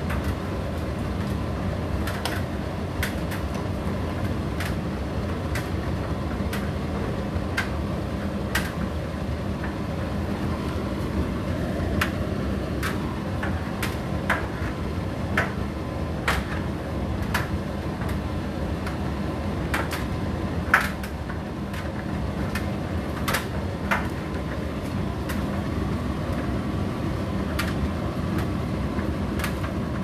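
Indesit IDC8T3 condenser tumble dryer running, its drum turning with a steady motor hum and rumble. Irregular sharp clicks and knocks come through as the clothes tumble against the drum.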